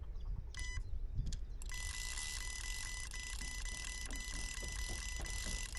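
Carp bite alarm sounding a single beep, then from about a second and a half in a rapid, unbroken run of electronic beeps: a fish has taken the bait and is running, pulling line off the reel.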